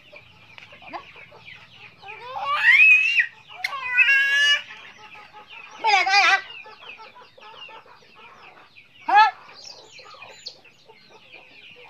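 Chickens clucking, with four louder calls spread over the stretch.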